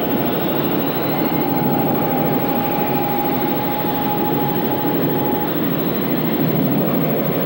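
Jet airliner engines running in a steady, loud roar, with a thin steady high tone over it that stops about three-quarters of the way through.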